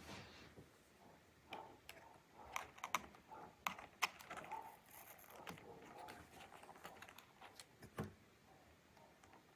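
Scattered clicks and taps on a laptop keyboard's keys, thickest in the middle, with a duller knock near the end.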